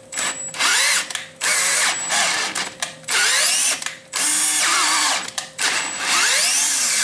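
Cordless drill driving a spiral-flute tap into an aluminum block in a series of short bursts, its motor whining up and winding down each time the trigger is squeezed and let go; the drill's battery is running low.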